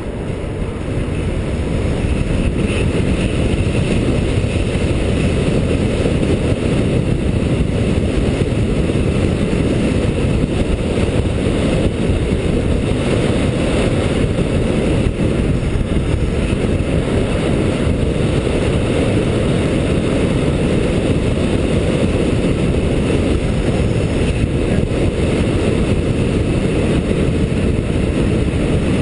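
Wind rushing and buffeting over a helmet-mounted GoPro microphone while riding an electric bike at speed. The noise grows louder over the first couple of seconds, then holds steady.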